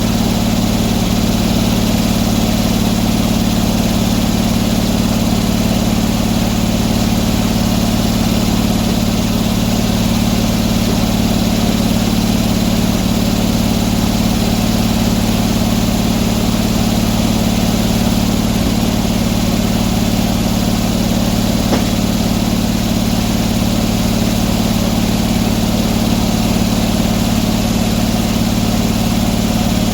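Engine running steadily at one constant speed, a continuous hum that neither revs nor changes.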